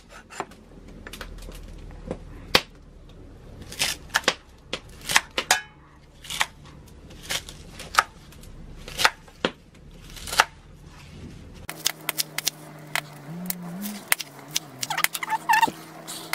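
Kitchen knife chopping through water spinach stems onto a wooden cutting board: short, sharp chops every half second to a second, at an uneven pace.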